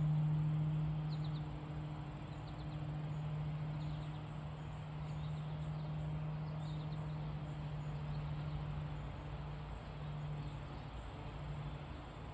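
Outdoor ambience: a steady low hum throughout, with faint, scattered high chirps from insects and birds.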